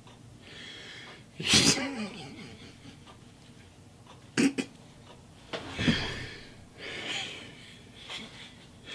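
A man laughing in about four short, breathy bursts, the loudest about a second and a half in.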